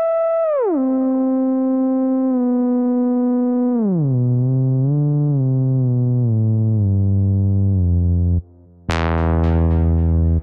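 u-he Hive software synthesizer playing its "HS Frumpet" preset: one held note gliding down in pitch in steps, about three octaves in all, with a brief wobble partway. Near the end it breaks off and a new low note starts with a sharp, bright attack.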